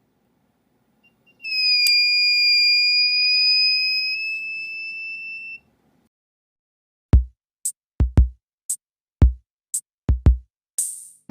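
Fire alarm circuit's buzzer sounding a steady high beep for about four seconds, rising slightly in pitch and growing quieter before it stops. A couple of seconds later a sparse drum-machine beat of deep kick thumps and hi-hat ticks starts.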